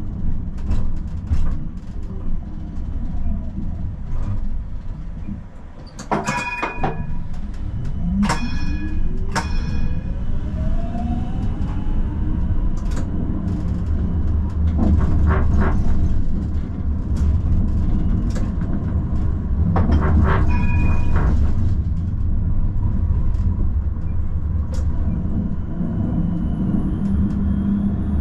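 Amsterdam city tram pulling away from a stop. A few short ringing signal tones sound about six and nine seconds in. Then the electric traction motor whine rises steadily in pitch as the tram accelerates, and it settles into a steady rumbling run along the rails.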